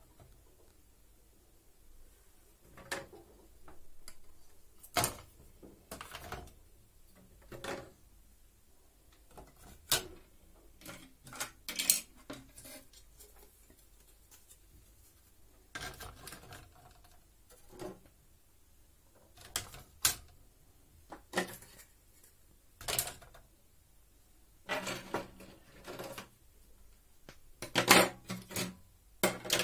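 Bare circuit boards being set down and stacked on a plastic kitchen scale: scattered clicks and clattering knocks as the boards hit the scale and each other, coming thicker near the end.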